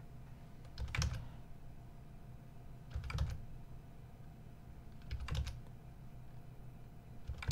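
Computer keyboard keystrokes: four short clusters of a few key presses each, about every two seconds. The presses are Alt+A and Esc, starting and stopping animation playback.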